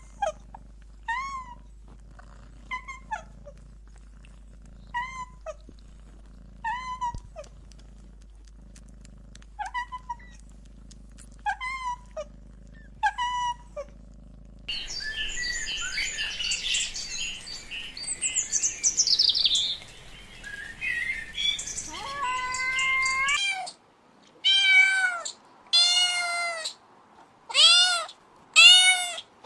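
Young kittens mewing: short, high-pitched calls about one every second or two. About halfway through comes a busier stretch of overlapping mews, then near the end louder, longer mews about once a second.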